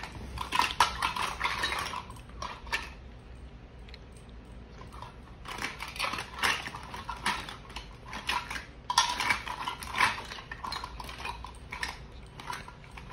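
Toy kitchen dishes and utensils clattering as they are handled, in three bouts of irregular clicks and knocks with short pauses between.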